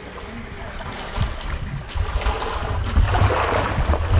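Someone wading through shallow floodwater among flooded trees, the water sloshing and splashing with each step. From about halfway in there is also a low rumble of wind or handling on the moving microphone.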